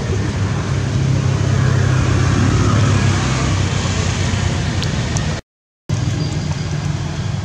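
Steady low hum and background noise of a running motor engine, with a half-second gap of total silence about five and a half seconds in.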